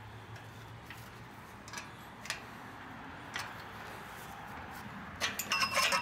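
Steel fittings of a galvanized chain link gate clicking and clinking as the gate is opened: a few light clicks, then a quick cluster of metal clanks near the end that ring briefly.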